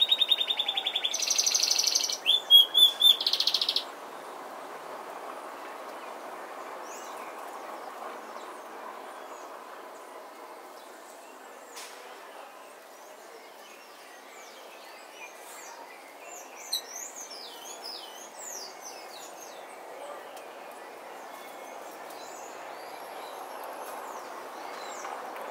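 Small songbirds calling. A loud, fast series of high repeated chirps stops abruptly about four seconds in, leaving a steady outdoor hiss with faint scattered high chirps from other birds.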